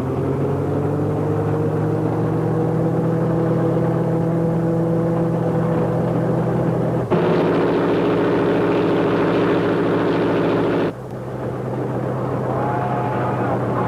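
Steam locomotive whistle of Disney's Engine No. 2, held open. Its pitch rises over the first few seconds, then a louder full blast sounding several tones at once starts abruptly about seven seconds in and cuts off sharply about four seconds later. A steady low hum runs underneath.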